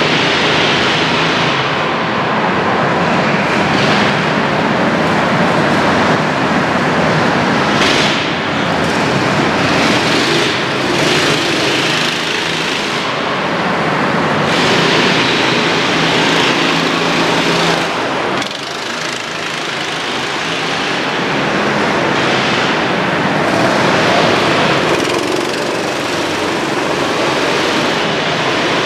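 Go-kart engines running as several karts race around the track, their sound swelling and fading as they pass, with a brief dip about 18 seconds in.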